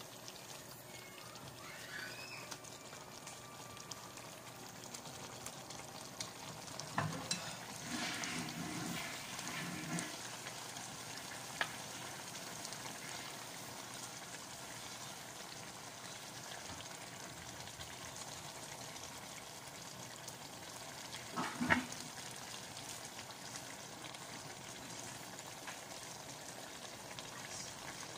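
Beef simmering in its marinade sauce in a frying pan: a steady hiss of sizzling and bubbling. A few sharp knocks stand out, the loudest a little past the middle.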